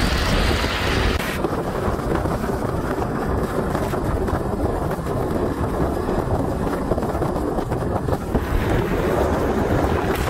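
Wind rushing over the microphone on a moving motorbike, with engine and road noise underneath. The higher hiss thins out about a second in and returns near the end.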